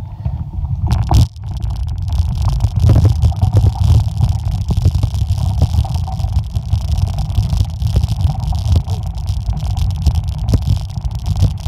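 Mountain bike rolling fast downhill on a gravel track: tyres crunching over loose stones with frequent short rattles and knocks, under a heavy, steady low rumble of wind on the microphone.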